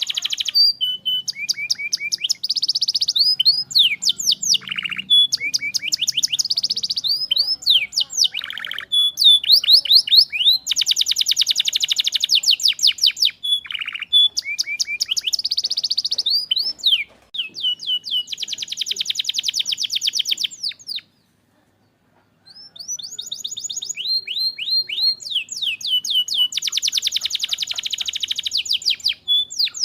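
Domestic canary singing a long, fast song of rapid trills, rolls and repeated chirps. It breaks off in a brief silence about two-thirds of the way through, then carries on.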